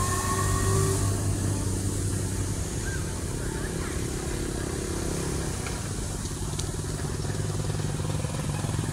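Small steam locomotive running slowly along the track, a steady mechanical sound with a rapid pulsing beat.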